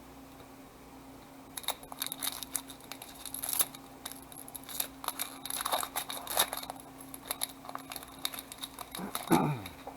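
Trading-card pack wrappers crinkling and tearing as packs are opened, in uneven runs of crackles starting about a second and a half in. Near the end there is a brief falling squeak, the loudest moment.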